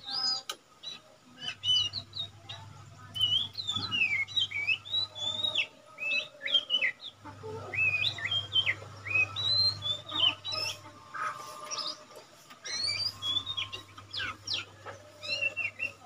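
Lesser green leafbird (cucak ijo mini) singing: quick phrases of short whistled notes that slide up and down, with brief pauses between phrases.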